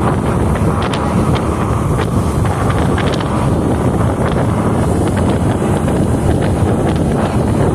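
Heavy wind buffeting the phone's microphone aboard a moving motorboat, a steady loud rumble, with water splashing along the hull.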